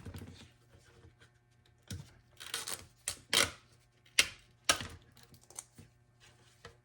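A string of irregular sharp clicks and scraping rustles from handling a plastic armor shin piece and its strap. They bunch up from about two seconds in to about five seconds in.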